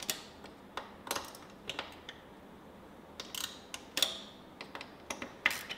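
Torque wrench tightening the YFZ 450R's axle carrier bolts to 18 foot-pounds: a string of sharp, irregularly spaced metallic clicks, some in quick clusters.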